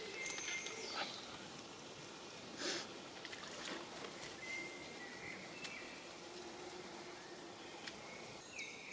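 Quiet woodland ambience with birds chirping now and then and a few soft handling noises.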